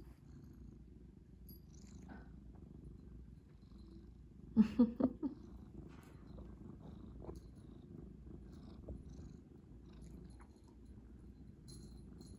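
Domestic cat purring steadily, up close. About halfway through, a brief cluster of four short pitched sounds is the loudest thing heard.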